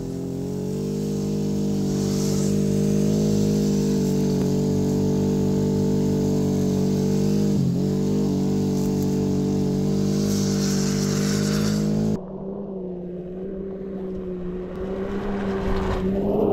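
Can-Am Maverick X3 turbo side-by-side on snow tracks running at high, steady revs as it ploughs through deep powder, the note dipping briefly about two-thirds of the way in. The sound then drops abruptly to a quieter, more distant engine note that grows louder again near the end.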